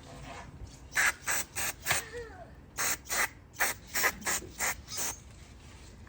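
Aerosol carburetor cleaner sprayed in a quick series of short squirts into a lawn mower carburetor's float bowl, about a dozen hissing bursts in two runs.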